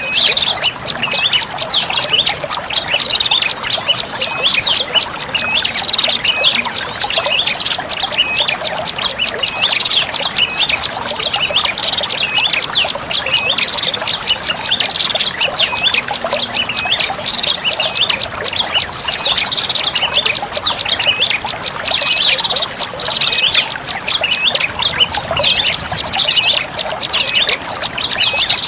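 Prenjak lumut song as used for a bird-lure recording: a fast, unbroken run of high, sharp chip notes repeated many times a second, rising and falling in short phrases. It plays over a steady hiss like running water.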